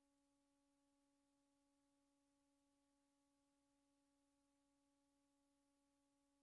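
Near silence: the film footage has no recorded sound, only a very faint steady hum at one low pitch with its overtones.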